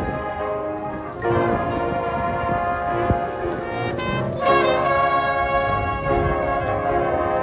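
Marching band playing, the brass section holding sustained chords, with a rising sweep into a louder chord about four and a half seconds in.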